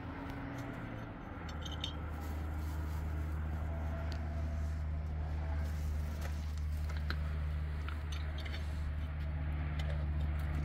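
A steady low hum sets in about a second and a half in. Over it come a few small clicks and light rustling from a metal teapot and a plastic bag being handled.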